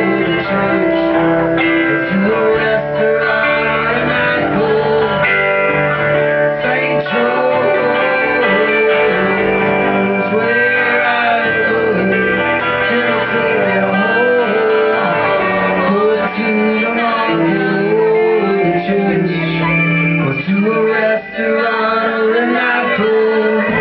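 Rock band playing live, guitars to the fore, with some singing.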